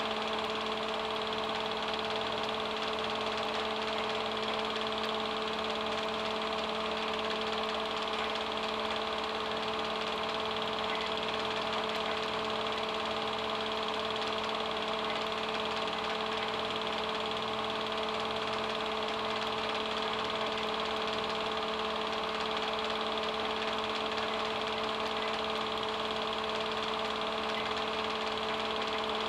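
Home-movie projector running: a steady motor hum with a fast, even mechanical clatter underneath.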